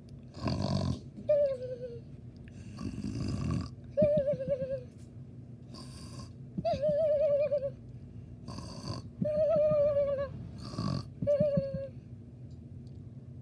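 A person imitating cartoon snoring: five cycles, each a rough, noisy in-breath followed by a wavering, whistling out-breath.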